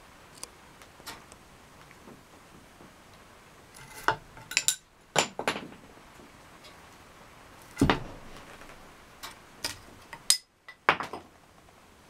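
Sharp wooden clicks and knocks, about a dozen spread irregularly, as the sticks and cord of a wooden bird-snare mock-up are handled, with one heavier knock about two-thirds of the way through.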